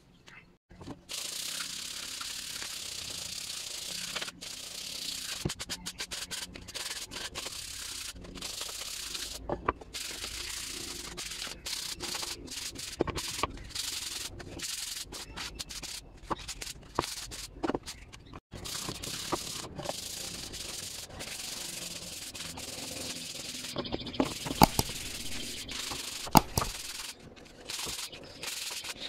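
Hand sanding of a wooden clock face with a sanding block: a steady rasping hiss in long strokes, broken by short pauses. A few sharp knocks near the end.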